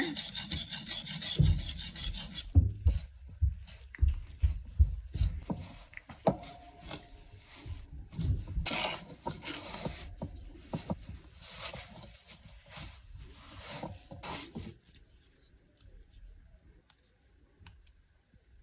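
Danish dough whisk stirring flour and water into a stiff, shaggy sourdough dough in a ceramic bowl: rubbing and scraping strokes against the bowl, with dull knocks in the first few seconds. The stirring dies down near the end.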